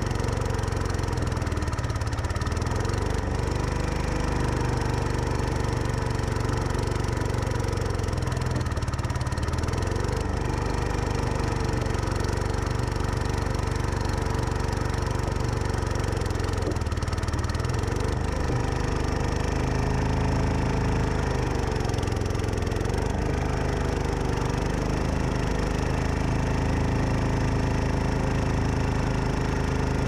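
The Cub Cadet 149 garden tractor's single-cylinder Kohler engine runs steadily while it plows snow. Its pitch sags briefly four times and recovers as the blade loads up with snow.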